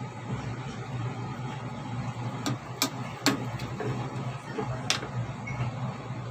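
A pot of pork boiling on a gas stove, over a steady low hum. Around the middle, a white plastic ladle stirs the meat and knocks sharply against the metal pot about five times.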